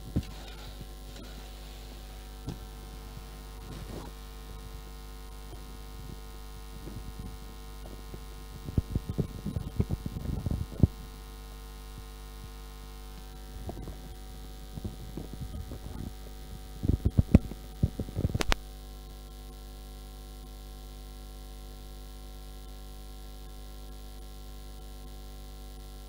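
Steady electrical mains hum with several steady tones over it. It is broken by two clusters of knocks and clatter, the first about nine seconds in and a louder one around seventeen seconds.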